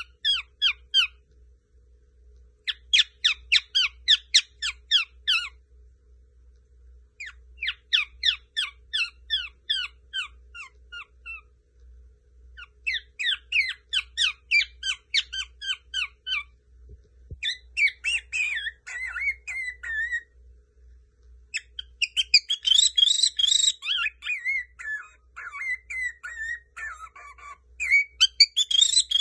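Lutino cockatiel singing: phrases of quick repeated chirps, about five a second, each run lasting two to four seconds with short pauses between. After about seventeen seconds it turns into a more varied warbling chatter with gliding whistles, densest a few seconds later and again near the end.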